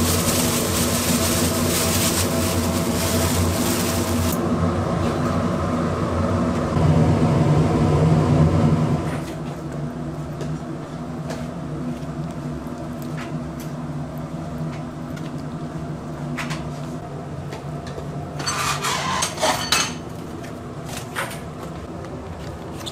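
Kitchen work: dishes and utensils clattering in scattered knocks over a steady machine hum, with a loud hiss for the first few seconds.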